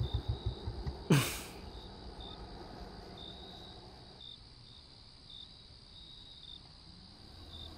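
Crickets chirping in short, irregular bursts over a faint low hum, after a brief loud falling whoosh about a second in.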